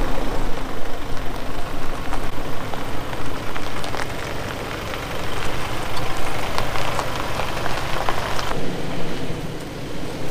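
Toyota Fortuner's 2.8-litre four-cylinder turbo-diesel engine running at low speed as the SUV crawls over a dirt mound in four-wheel-drive low range, with scattered clicks and crunches of dirt and stones under the tyres. The sound thins abruptly about eight and a half seconds in, with the vehicle farther off.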